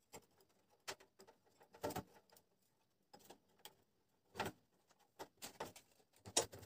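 Faint, irregular clicks and taps of a small metal tool and burner parts being fitted at a stainless-steel gas stove burner, about a dozen in all, the loudest about two and four and a half seconds in.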